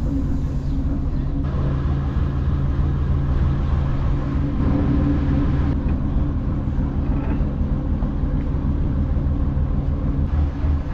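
Dutch barge's inboard engine running steadily under way, a low even drone that pulses more strongly near the end. Something is wrapped around the propeller, setting the boat shaking.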